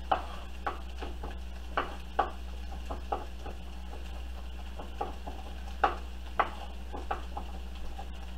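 Chef's knife mincing ginger on a bamboo cutting board: irregular knocks of the blade against the wood, roughly one a second.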